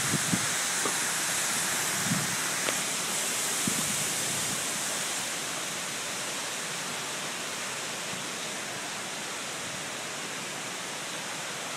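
Hangar foam fire-suppression system discharging through floor grate nozzles: a steady rushing hiss of foam and water spraying out, easing slightly about halfway, with a few faint knocks early on.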